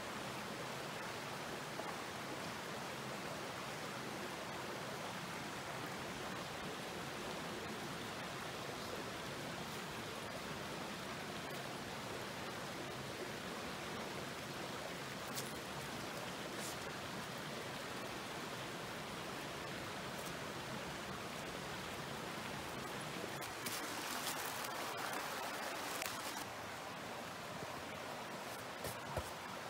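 Mountain stream flowing, a steady rush of water. About three quarters of the way through, a few seconds of louder rustling with sharp clicks sounds over it, and a couple more clicks come near the end.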